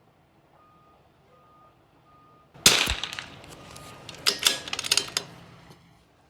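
A single shot from a bolt-action .22 LR target rifle, about two and a half seconds in, followed a little over a second later by a quick run of sharp metallic clicks as the bolt is worked to eject the case and chamber the next round.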